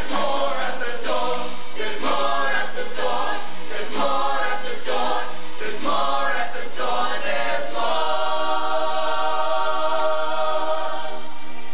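A mixed chorus of young men's and women's voices singing together in short phrases, then holding one long chord from about eight seconds in.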